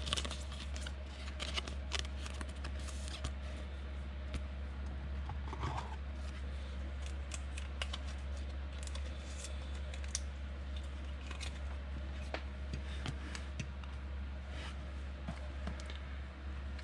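Trading cards and pack packaging being handled on a table: scattered small clicks, snips and rustles over a steady low electrical hum.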